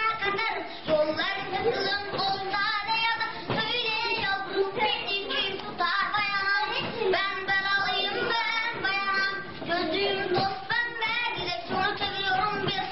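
Music with a high-pitched, childlike singing voice.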